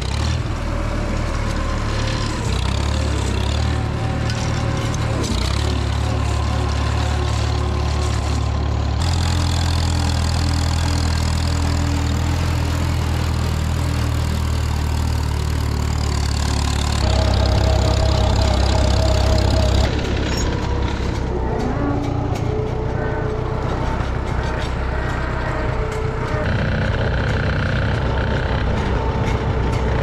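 Tractor engine running steadily while driving, its pitch and loudness shifting abruptly a few times and loudest about seventeen to twenty seconds in.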